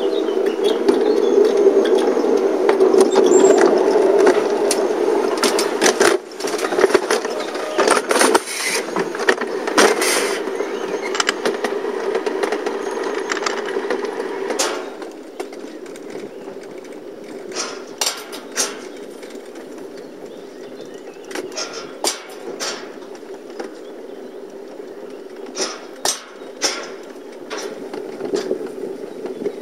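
Summer bobsled rumbling as it runs along its stainless steel trough track. The rumble is loud for about the first fifteen seconds, then drops to a quieter steady running noise, with scattered sharp clacks throughout.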